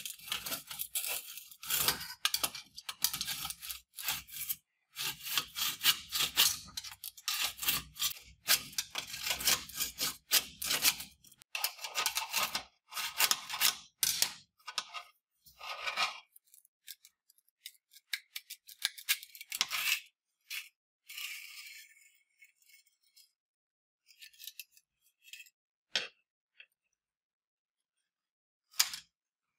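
Rusty Mauser 98K bayonet and its steel scabbard handled on a metal bench: scraping, rubbing and clinks of metal on metal. Busy for the first half, then only scattered scrapes and a few single taps.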